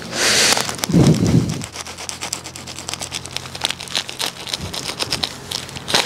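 Plastic packaging crinkling and crackling as it is handled and pulled off a metal part, with a dull thump about a second in.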